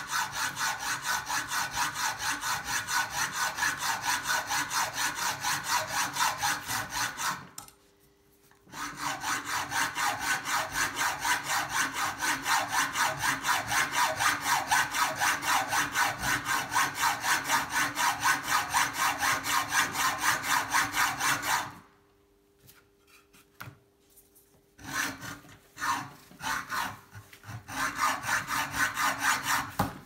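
Hand hacksaw cutting through a bicycle seat post in quick, even strokes, about three a second. The sawing stops for about a second, runs on, then breaks off for a few seconds. A few halting strokes follow before steady sawing picks up again near the end.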